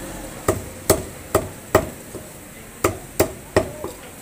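Meat cleaver chopping through chicken into a wooden log chopping block. There are two quick runs of about four sharp chops each, a little more than two a second, with a short pause between the runs.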